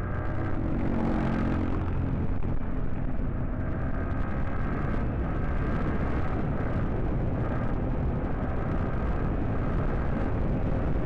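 Yamaha R15 V4 motorcycle riding at steady speed: its 155 cc single-cylinder engine running under a dense, steady rush of wind noise on the helmet microphone.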